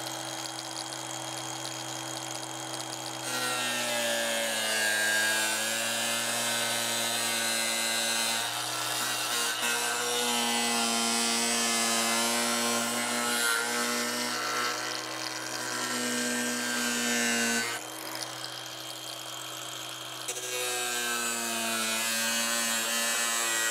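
Angle grinder with a cut-off wheel cutting into the plastic guard tube of a tractor PTO shaft. The motor whine is steady at first, then sags in pitch and gets louder when the wheel bites, about three seconds in; it eases off for a couple of seconds past the middle, then bites again.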